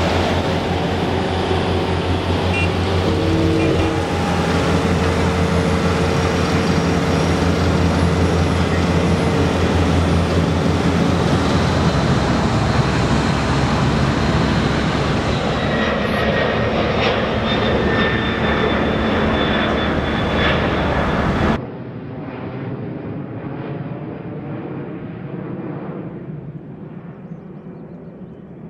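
Diesel engines of HAMM tandem asphalt rollers running with a steady low hum. From about twelve seconds in, the jet engines of a Boeing 737 whine with high steady tones. A little after twenty seconds the sound drops suddenly to a duller rumble that fades away.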